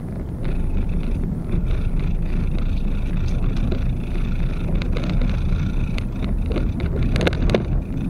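Travel noise from a moving road vehicle: a steady low rumble with scattered clicks and rattles, and a short cluster of sharp knocks near the end.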